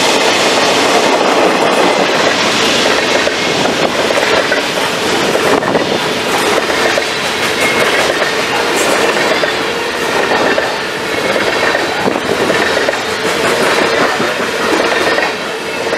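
Freight train of covered hopper cars passing, its wheels running over the rails in a steady loud din. Near the end the last car goes by and the noise begins to drop.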